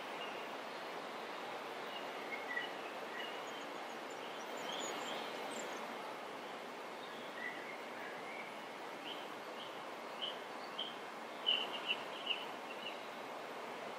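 Faint bird chirps, a few short calls scattered through and a quick cluster near the end, over a steady background hiss.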